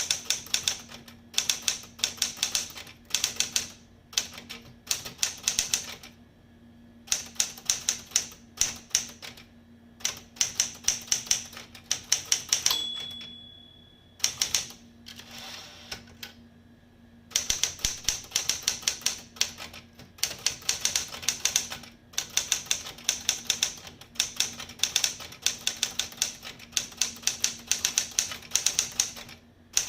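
SCM Sterling 12 manual portable typewriter being typed on in quick runs of key strikes with short pauses. About thirteen seconds in, a single ring of the margin bell sounds, and the carriage is returned before typing resumes.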